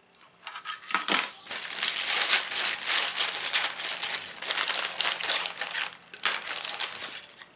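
Rustling crinkle and many small clicks of plastic as a handful of small 3D-printed model car parts is handled and sorted, starting about a third of a second in and dying down near the end.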